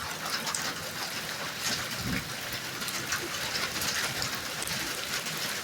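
Smash burger patties sizzling in a grilled cheese machine: a steady hiss of frying fat, with a soft low knock about two seconds in.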